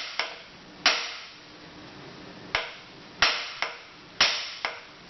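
Hammer blows on a nut threaded onto the crankshaft end of a lawn tractor engine, knocking to free a stuck flywheel: a series of sharp metallic strikes at uneven intervals, some in quick pairs, each ringing briefly. The flywheel does not budge.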